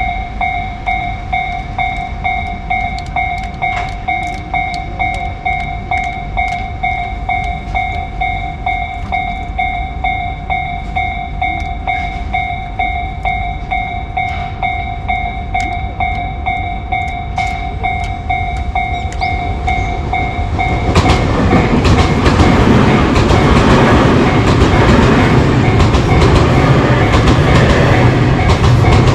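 Japanese railroad crossing electronic alarm ringing in a steady two-pulse-a-second ding-ding, then from about 21 seconds in a Tobu Tojo Line train passes through the crossing loudly with wheel clatter over the rails, the alarm still ringing underneath.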